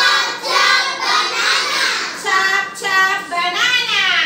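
Children's voices singing a song together, high-pitched with sliding notes.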